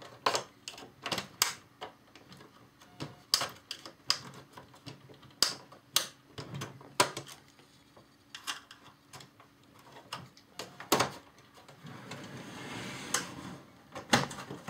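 Plastic case parts of an Xbox 360 clicking and snapping as they are worked loose by hand: irregular sharp clicks, with a rubbing scrape of plastic near the end.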